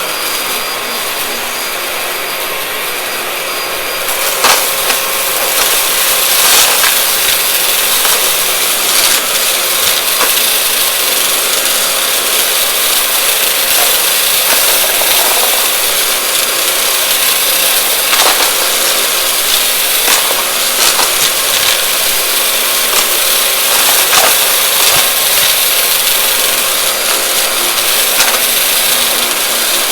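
Vacuum cleaner running steadily and sucking up crunchy debris, with irregular crackles and clicks as the bits rattle through. About four seconds in it gets louder and the crackling starts.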